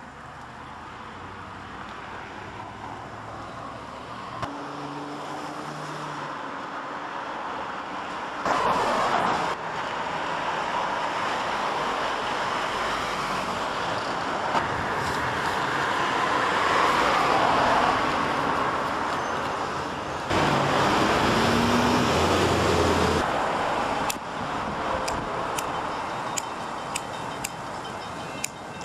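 Road traffic passing on a nearby street, a steady hiss of tyres and engines, with two louder swells as vehicles go by. Near the end comes a run of sharp, light clicks.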